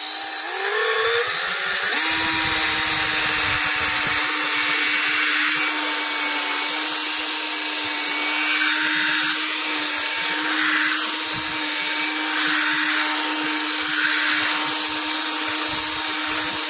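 Craftsman C3 cordless drill running as its bit bores a hole through the rubber tread of a lawn tractor tire. The motor whine rises in pitch over the first two seconds, then holds a steady pitch.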